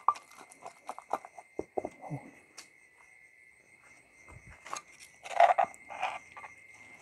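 A pestle knocks in a mortar, pounding shrimp laab into a sticky paste, with several quick strokes in the first two seconds. Later a spoon scrapes and knocks against the mortar as the paste is scooped out, loudest about five and a half seconds in. A steady high insect chirring runs underneath.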